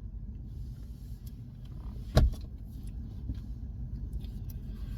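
Steady low background rumble with a single sharp knock about two seconds in.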